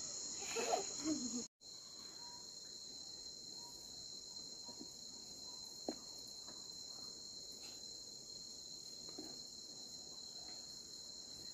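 Steady, high-pitched chorus of crickets, unbroken apart from a momentary dropout about a second and a half in.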